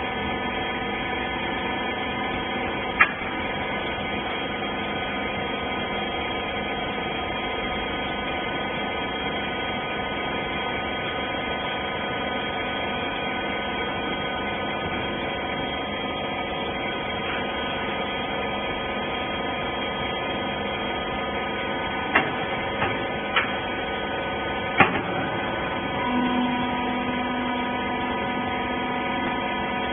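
Rag baling machine running with a steady motor hum. Sharp clicks sound about 3 s in and several more between about 22 and 25 s in, and a lower steady tone joins in near the end.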